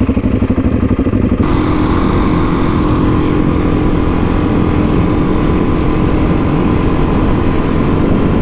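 Suzuki DR-Z400E single-cylinder four-stroke dirt bike engine pulling away: a pulsing low-rev chug at first, then about a second and a half in it steps up to a steadier, higher note as the bike gets under way and holds it.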